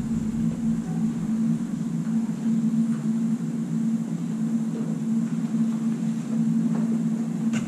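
A steady low hum with a faint hiss under it. A short click comes near the end.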